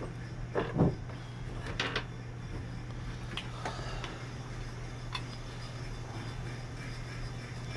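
Hands and tools working on a marine engine's parts: a dull knock just under a second in, a pair of sharp clicks about two seconds in, then a few lighter clicks, over a steady low hum.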